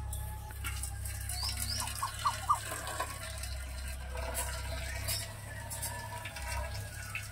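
Hot rice starch water trickling and splashing from a tilted steel cooking pot into a steel bowl as cooked rice is drained.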